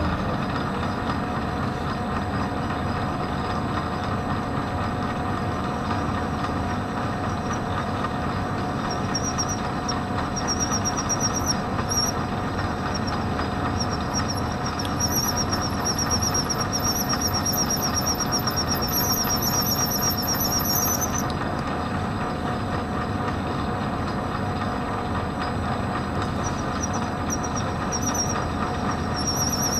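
Metal lathe running while a radius tool cuts a rounded end on a metal handle shaft. Steady machine noise throughout, with a high, wavering squeal from the cut that comes and goes in the middle and again near the end.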